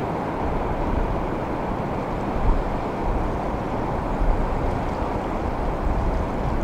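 Steady rush of ocean surf and swell around a pier, with wind buffeting the microphone in deep gusts, strongest about two and a half and four seconds in.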